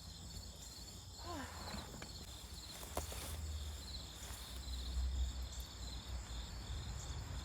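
Insects chirping steadily in a high, rapidly pulsing trill, over a low rumble, with one sharp click about three seconds in.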